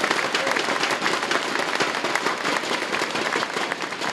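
Audience applauding: many hands clapping in a dense patter that eases off slightly near the end.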